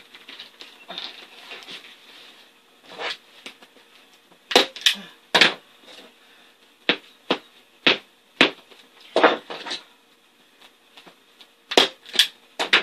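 Hand staple gun firing staples into the seat base to fasten a vinyl cover: a series of about a dozen sharp clacks, some in quick pairs, starting about three seconds in.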